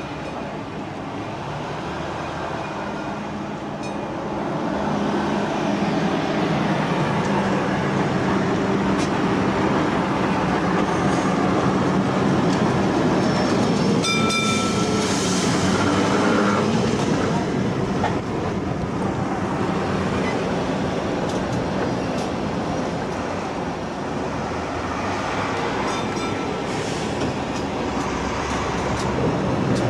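Vintage Melbourne W2-class streetcar running along the street track, heard from aboard another tram: a steady rail rumble and clatter that grows louder a few seconds in as it comes alongside, with a short ringing squeal of wheel on rail about halfway through.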